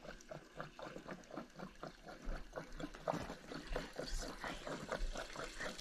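Faint, irregular clicks and light knocks.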